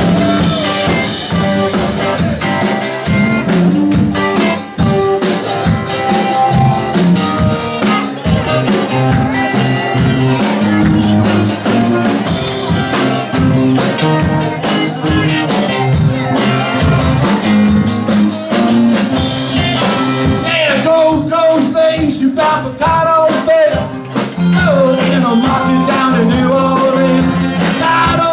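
Live rock band playing: electric guitar, bass and drum kit kick in together right at the start and run on in a steady rock beat without lead vocals.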